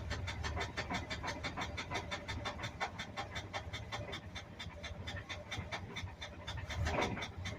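1982 Ford F-100's 3.8-litre V6 running with a fast, even knocking, which the owner takes for a rod knock.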